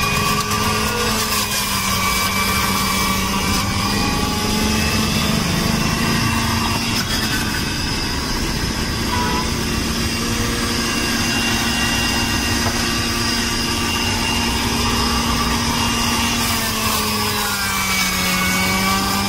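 Electric centrifugal juicer running with a steady motor hum as aloe vera gel is pushed down its feed chute; the motor's pitch sags briefly near the end under the load.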